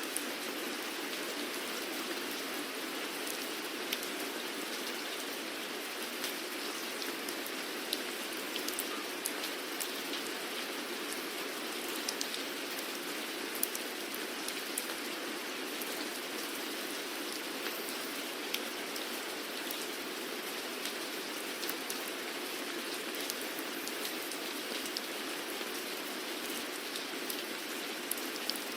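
Steady rain falling on a surface, with frequent sharp individual drop ticks scattered through an even hiss.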